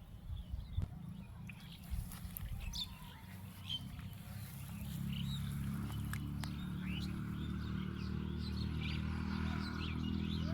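Small birds chirping repeatedly, with a low, steady hum coming in about halfway through.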